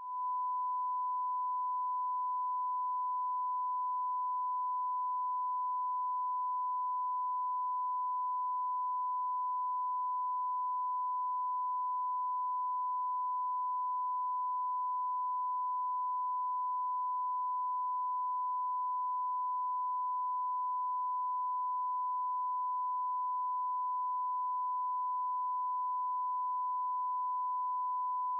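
Steady electronic test tone: one pure, unwavering pitch held without a break, marking the end of the transmission.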